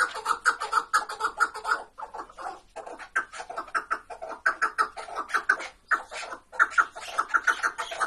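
Caged chukar partridges calling: a rapid series of clucking chuck notes, about six a second, with brief breaks about two and six seconds in.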